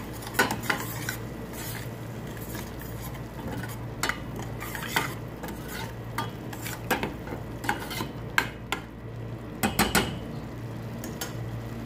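Metal ladle stirring a thick frying spice paste in a stainless steel pot, with irregular clinks and scrapes against the pot's sides and bottom. The loudest cluster of knocks comes about ten seconds in.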